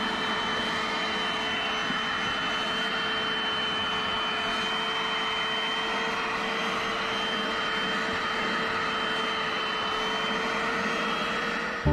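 Bissell Little Green portable carpet and upholstery cleaner running steadily, its motor giving an even whine with a steady high tone.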